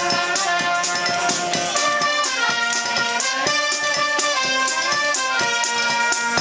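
A live street band playing, with saxophones carrying a melody in held notes over a steady percussion beat.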